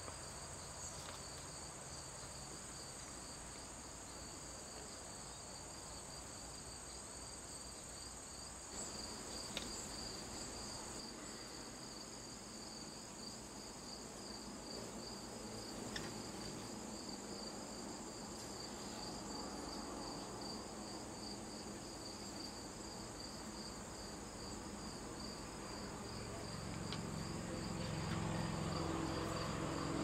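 Chorus of crickets or similar insects: a steady high trill with a quicker, evenly pulsing chirp just below it. A couple of faint ticks come about a third and half of the way in, and a low, soft rumble builds near the end.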